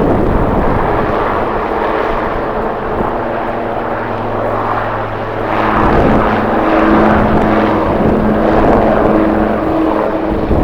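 Jet airliner engines humming steadily, with a higher tone joining about halfway through, under heavy wind buffeting the microphone.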